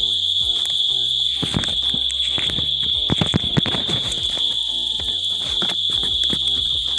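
Insects chirring in one steady high-pitched drone, with a few sharp clicks about halfway through.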